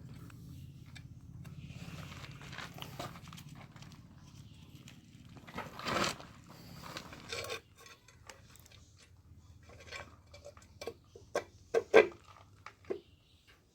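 A series of sharp clicks and knocks, the loudest coming in a quick run near the end, over a steady low hum that stops about halfway through.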